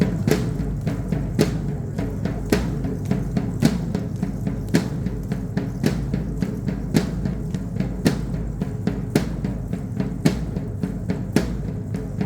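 Drumming for a traditional Mexican danza: a steady low drum beat with sharp, loud strikes about once a second and lighter strikes between them.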